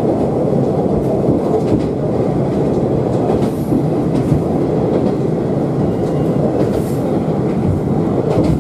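Moka Railway diesel railcar running along the line, heard from inside the carriage: a steady low rumble of engine and wheels on the rails, with a few faint clicks over rail joints.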